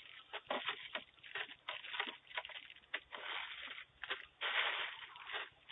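Irregular rustling and crackling in uneven bursts, heard through a doorbell camera's narrow-band microphone.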